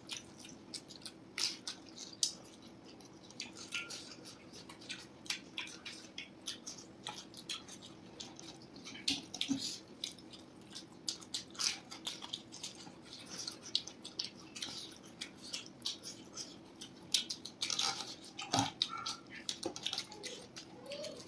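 Eating sounds: irregular crisp bites and chewing of a fried spring roll and fried rice eaten by hand, with a faint steady hum underneath.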